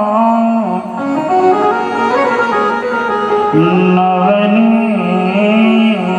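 Devotional singing of a Sanskrit verse with instrumental accompaniment: the voice draws a syllable out in slow melodic bends over steady held notes.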